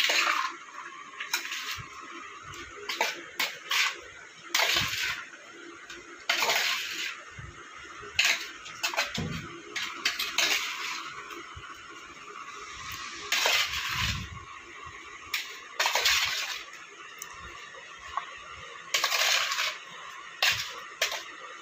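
A spoon scraping and clinking against a metal bowl as sliced ginger, coated in spices and lemon juice, is stirred and tossed. The sharp scrapes come irregularly, every second or two.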